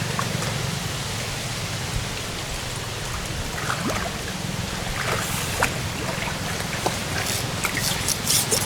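Steady water-like rushing and trickling, with scattered short splashes and clicks that come thick and fast near the end.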